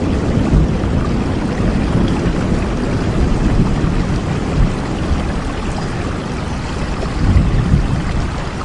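Heavy rain falling steadily, with a low rumble underneath that swells briefly near the end.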